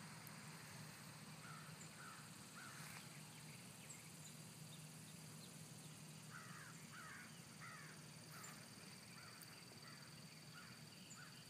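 Very faint short animal calls, repeated in little runs, most of them in the second half, over a quiet outdoor background with a faint steady low hum and a thin steady high tone.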